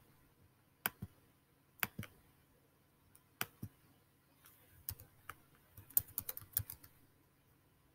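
Computer keyboard typing: a few single clicks spaced out over the first few seconds, then a quick run of keystrokes from about five to seven seconds in.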